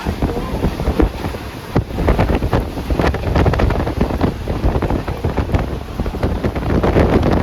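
Wind buffeting the microphone over the rumble and irregular clattering of a moving train.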